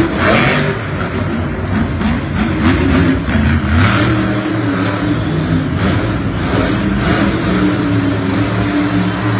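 Monster trucks' supercharged V8 engines revving hard, the pitch repeatedly rising and falling with the throttle.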